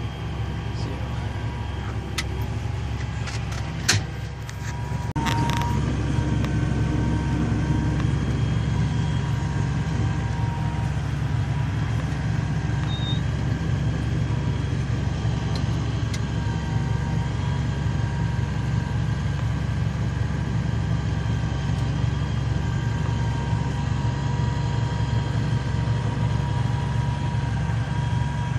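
Heavy farm machine engine running steadily, a low drone with a constant whine over it. A sharp knock comes about four seconds in, and from about five seconds the machine runs a little louder.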